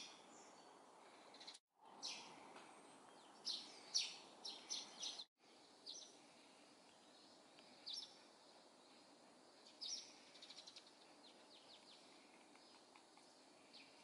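Eurasian tree sparrows chirping: short, high chirps in scattered small groups, the loudest a few seconds in, and a quick run of faint chirps about ten seconds in, over a faint background hiss.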